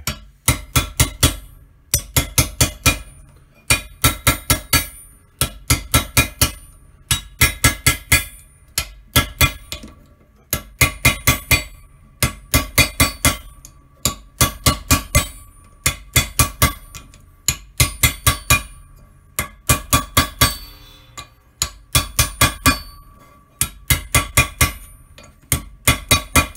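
Ball-peen hammer striking the steel male punch of a concho die, in quick runs of four to six ringing blows with short pauses between. The blows press an 18-gauge sterling silver concho blank into the die, doming its edge a little at a time.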